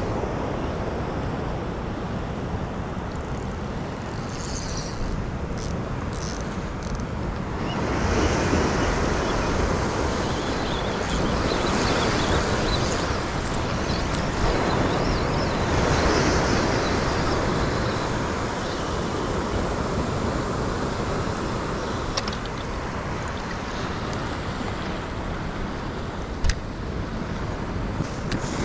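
Ocean surf washing in steady noise that swells in slow surges, with wind on the microphone. A single sharp knock comes near the end.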